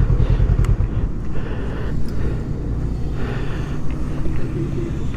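Motorcycle engine running at low speed: a steady low rumble.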